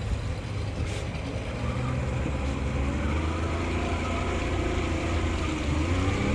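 Boat engine running steadily on the water, its pitch rising a little partway through.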